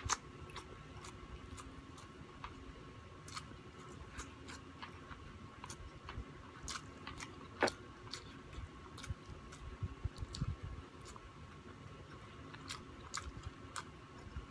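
Close-miked chewing of a man eating rice and meat by hand, with wet mouth sounds and many small clicks; the sharpest click comes right at the start and another about seven and a half seconds in. A faint steady hum runs underneath.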